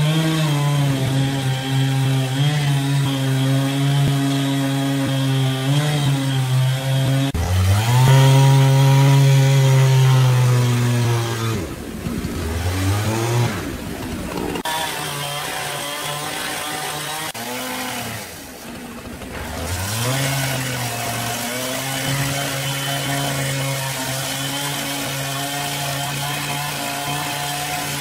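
Two-stroke chainsaw cutting into a large ironwood log, the engine running hard under load. Its pitch rises about a quarter of the way in, then sags and comes back up twice in the middle.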